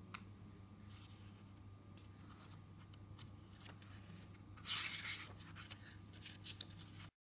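Paper pages of a hardback book turned by hand: soft rustling with a short tap just after the start, a louder page swish about five seconds in and two light ticks near the end, over a low steady hum. The sound cuts off suddenly about seven seconds in.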